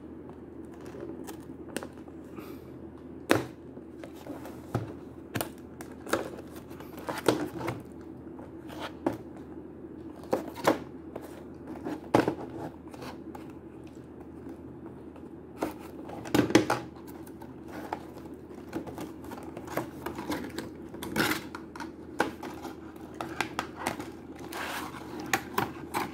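Utility knife slicing the tape on a cardboard toy box and its clear plastic lid, with scattered sharp clicks, scrapes and crinkles of plastic and cardboard being handled.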